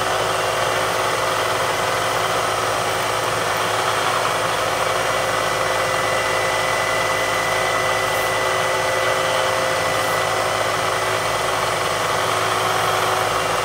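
CNC milling machine's spindle running steadily while a twist drill in a drill chuck bores into thick aluminum plate: an even machine hum with a thin high whine.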